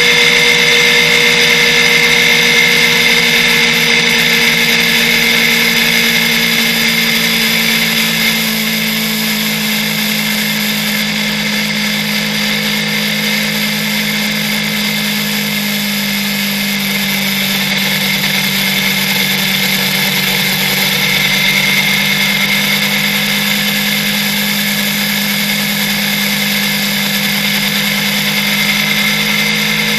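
Motorcycle engine running hard at steady cruising revs at autobahn speed: a loud, even engine note. The revs ease off a little over the first several seconds and build back up about two-thirds of the way through.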